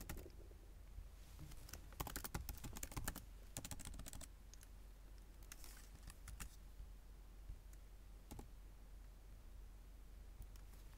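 Faint computer keyboard typing in several short bursts, then a few single clicks, over a low steady hum.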